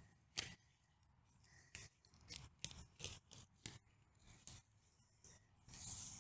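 Faint, irregular crackling snaps and scratching from the fibrous roots of a cat palm's root-bound root ball being pulled and loosened by gloved hands, with about a dozen small snaps and a brief scrape near the end.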